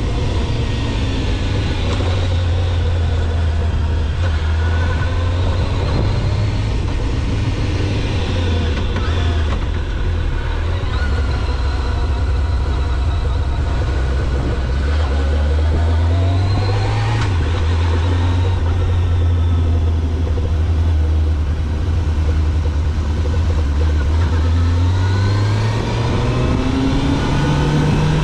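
Sport motorcycle engine running under way, heard from an onboard camera with steady wind and road noise. The engine note holds fairly steady, rises briefly a little past halfway, then climbs again near the end as the throttle opens.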